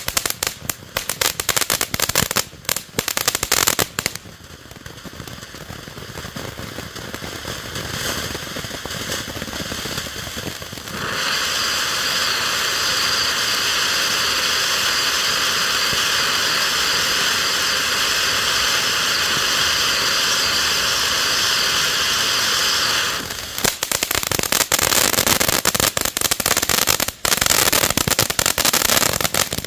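Weco Ocean of Lights fountain firework burning. It opens with dense crackling, then a hiss that builds and becomes a loud steady spray hiss about eleven seconds in. Near the end the crackling returns.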